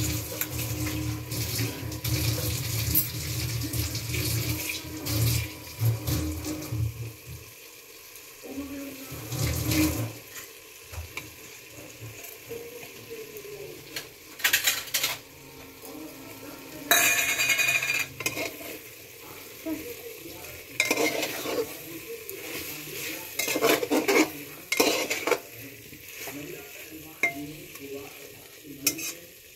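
Metal spatula scraping and knocking against the inside of an aluminium pressure cooker while a thick curry is stirred, with a light sizzle of the food cooking. A longer scrape comes about halfway through, and a low hum underlies the first few seconds before dropping away.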